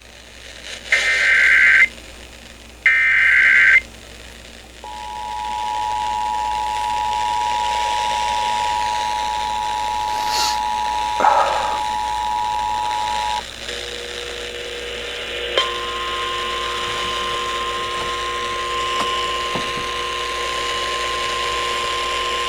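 Emergency Alert System tones on FM radio: two short bursts of digital header data tones about a second apart, then the two-tone EAS attention signal held steady for about eight seconds. It cuts off and gives way to a different steady droning set of tones.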